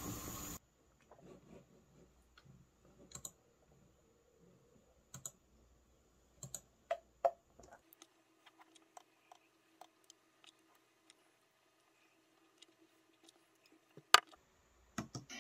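Sparse, quiet taps and clicks of a plastic drink tumbler being handled and set on a wooden desk, the loudest a single sharp click near the end.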